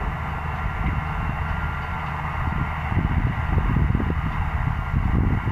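Distant New Holland T5060 tractor's diesel engine running steadily under load while pulling a Lemken cultivator, with an irregular low rumble over it that swells and fades around the middle.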